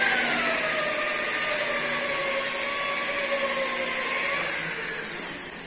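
Rotary car polisher with a foam pad running on a car's painted hood, working polishing compound into the paint. Its whine falls in pitch over the first couple of seconds, holds steady, then fades and stops near the end.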